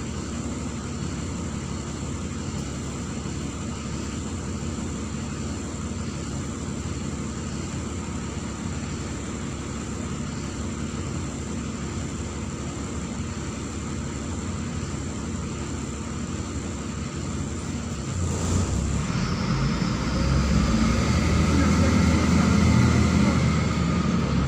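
Neman city bus's diesel engine running steadily at a low, even pitch. About 18 seconds in there is a short hiss, then the engine grows louder and a whine rises in pitch as the bus pulls away and accelerates.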